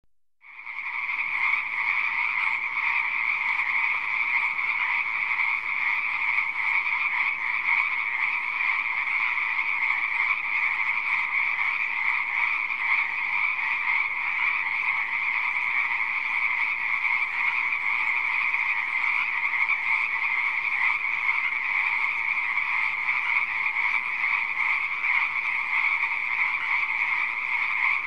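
A dense chorus of many frogs croaking at once, forming a continuous pulsing din with no breaks. It fades in within the first second.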